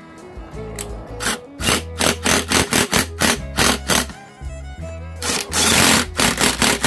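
Background music with a steady beat and bass line. Near the end, a cordless impact driver rattles for about a second as it runs down a throttle body bolt.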